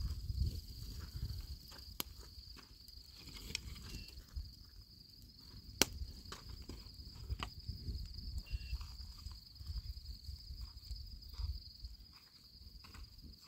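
Crickets chirring steadily at one high pitch, over a low rumble, with scattered sharp clicks and crackles from a wood campfire and footsteps on stony ground.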